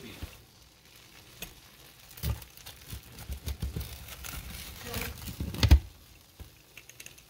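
A pizza wheel cutting through a baked pizza's crust on a pan: irregular crunching and scraping with light knocks, and one heavy thump a little before six seconds in.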